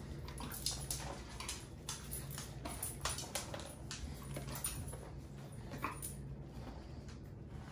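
Small dog moving about on a hard vinyl floor: irregular light clicks and ticks, its nails on the floor and its snuffling, over a steady low hum.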